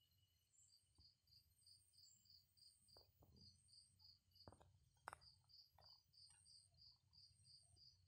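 Near silence with faint insect chirping in the background: short high chirps repeating about three times a second, with a brief pause just after four seconds in, over a low rumble. A few soft clicks, the sharpest about five seconds in.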